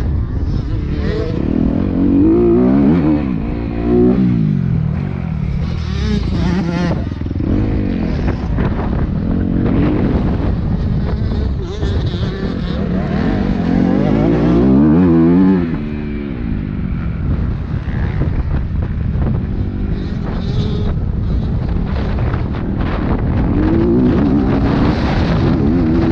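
Dirt bike engine at full race pace, the revs climbing and falling again and again as the rider accelerates, shifts and backs off, with a sharp drop in revs about fifteen seconds in. Wind noise on the microphone runs underneath.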